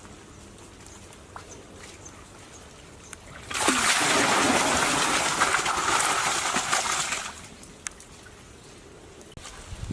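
Water pouring and splashing for about four seconds, starting suddenly a few seconds in and tailing off, with faint small ticks and knocks around it.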